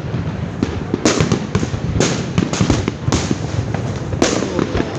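Fireworks going off: a steady crackle of small bangs with louder sharp reports about one, two, three and four seconds in.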